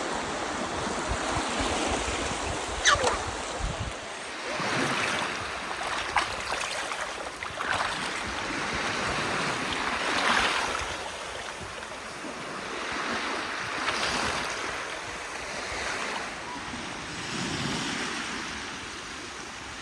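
Sea waves washing onto a shore, the noise swelling and fading every few seconds, with wind buffeting the microphone.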